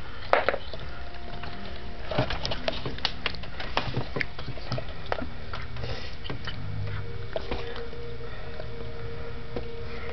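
A tomcat chewing and licking a Toblerone, a run of irregular short clicks and smacks.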